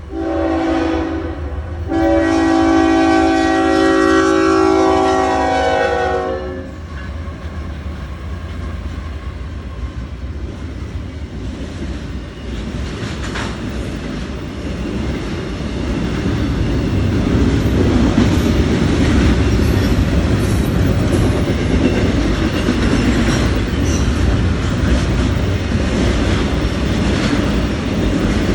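CPKC freight train's locomotive horn sounding a chord, a short blast and then a long one of about four seconds. Then the train rolls past, its wheels rumbling and clacking on the rails, growing louder over the last ten seconds or so.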